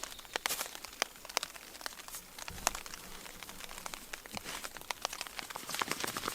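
Tarp fabric crinkling and rustling as it is handled and pulled into place, with many scattered sharp clicks and crackles.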